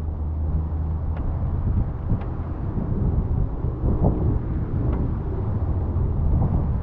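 Steady low rumble of a car driving, with wind buffeting the microphone and a few faint ticks.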